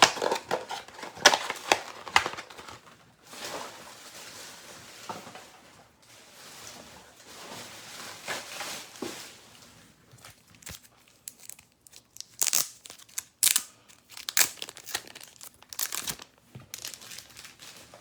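Plastic trading-card packaging being handled, crinkling and tearing in irregular bursts, with sharper crackles in the later seconds.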